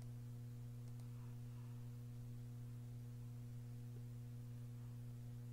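Faint steady electrical mains hum: a low drone with a few fainter higher overtones.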